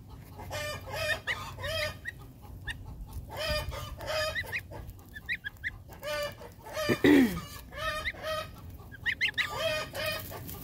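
Chickens clucking and squawking in a noisy ruckus, with short high peeps from goslings close by. About seven seconds in comes the loudest call, one whose pitch falls steeply.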